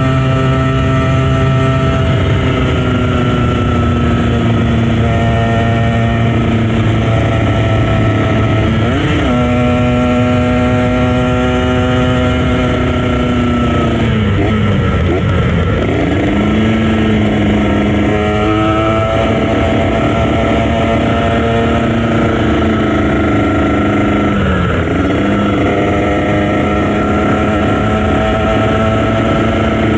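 Kawasaki Ninja RR 150 two-stroke motorcycle engine running at high revs under way, a steady buzz whose pitch dips briefly and climbs back about four times.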